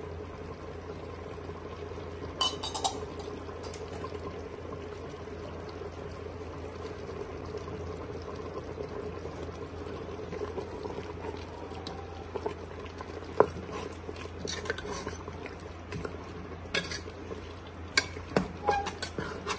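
A metal ladle stirring thick mutton curry in an open pressure cooker, with a sharp clink about two and a half seconds in and scattered scrapes and clinks of the ladle against the pot in the second half, over a steady low hum.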